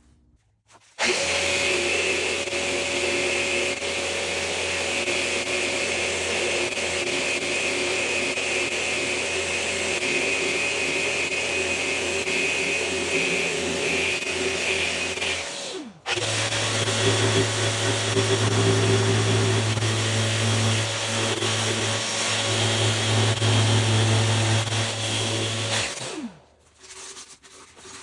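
An electric motor runs steadily for about fifteen seconds, winds down, starts again almost at once and runs about ten seconds more before winding down.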